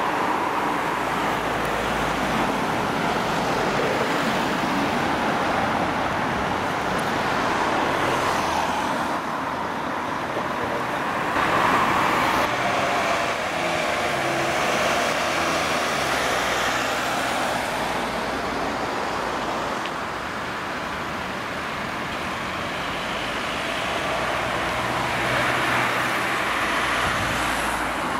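Heavy-haul convoy passing close: tractor units pulling multi-axle low-loader trailers, then escort vans, a steady mix of engine and tyre noise that swells a little about halfway through.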